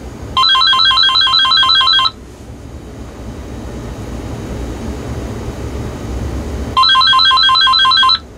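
AT&T EL51359 DECT 6.0 cordless phones ringing with their electronic warbling ring, a fast trill of alternating beeps. Two ring bursts of under two seconds each come about five seconds apart, showing an incoming call is reaching the handsets.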